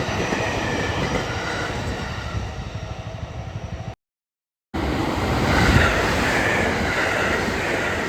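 A train running past on the rails, its rolling noise slowly thinning. About four seconds in the sound cuts dead for under a second at an edit, then comes back with a steady rushing noise and a faint wavering whine.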